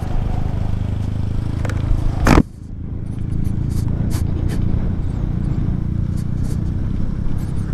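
Honda ADV scooter's engine running steadily at low speed on a downhill ride, with one sharp, loud knock about two seconds in.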